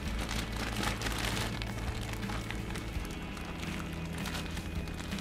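Plastic zip-top bag crinkling and rustling as it is gripped and lifted, with a dense run of small crackles.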